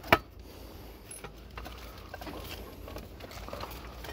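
Light rustling and small scattered taps of rubbish being handled in a wheelie bin, with one sharp click just after the start.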